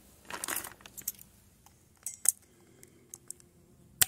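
Scattered light clicks and clinks of small hand tools and fittings being handled: yellow locking pliers being picked up and clamped onto a PEX pipe in a brass push-fit fitting. There is a sharper click near the end.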